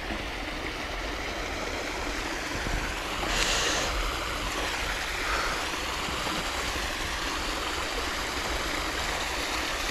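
Steady outdoor background noise with a low rumble, a mix of wind and distant city traffic across the river, with a brief rustle about three and a half seconds in.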